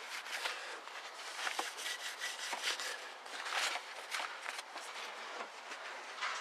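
A cloth wiping over engine parts: a run of irregular soft swishes and scuffs.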